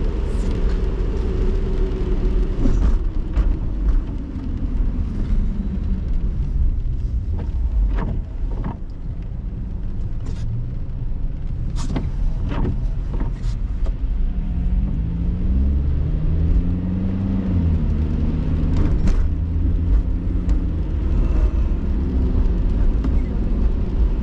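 Car driving on a wet road, heard from inside the cabin: a low engine rumble and tyre hiss, the engine note falling as the car slows in the first few seconds, then rising in steps as it pulls away about two-thirds of the way in. A few short sharp knocks are heard in the middle.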